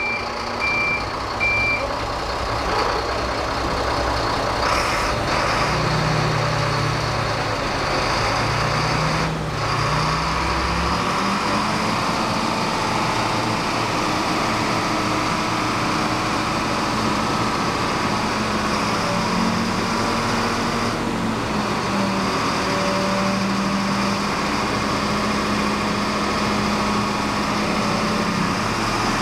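Concrete mixer truck's diesel engine running, its pitch rising and falling for several seconds before settling into a steady note. A reversing beeper beeps rapidly for the first couple of seconds.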